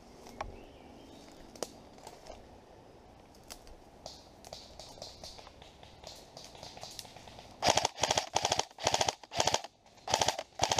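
Airsoft electric gun (AEG) firing on full auto in several short bursts of rapid shots in the last three seconds, after a stretch of only faint scattered snaps and clicks.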